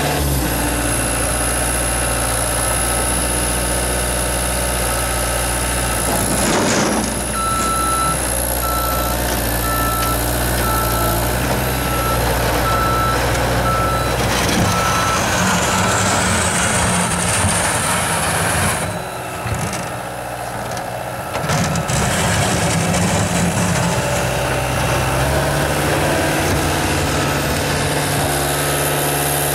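Cat 236B skid-steer loader's diesel engine running under load as it pushes snow with its bucket, with a high whine over it. Its backup alarm beeps about once a second for several seconds starting about a quarter of the way in, as the machine reverses. The engine eases off briefly about two-thirds of the way through.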